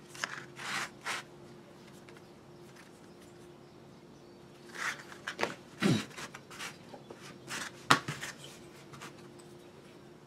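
A piece of steel angle iron and hand tools being handled on a wooden board: short scrapes and rubs, a few sharp clicks and knocks, over a faint steady hum.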